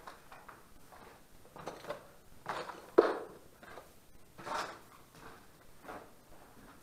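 Footsteps scuffing and crunching at an uneven pace, about one every half second to a second, with one sharp knock about three seconds in.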